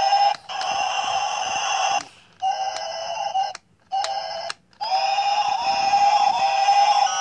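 Battery-powered toy bubble gun's electronic sound: a steady, buzzy beeping tone that cuts out and starts again three times.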